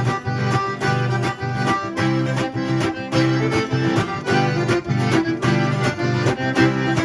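Live sertanejo band playing an instrumental passage of the song between sung verses, with a steady beat.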